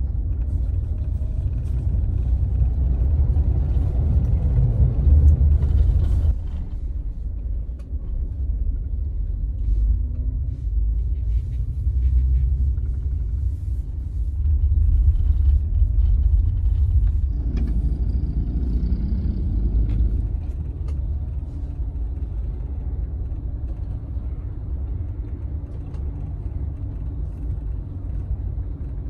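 Low rumble of a Scania Astromega double-decker bus driving, its engine and road noise heard from inside the upper-deck cabin. It swells louder a few seconds in and again around the middle, then settles.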